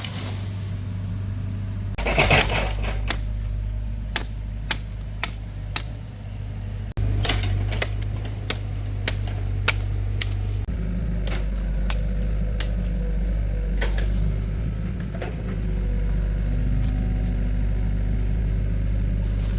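Engine running steadily at a low hum, with a string of sharp clicks and knocks over it, thickest in the first half; the hum shifts abruptly about seven seconds in and again near eleven seconds.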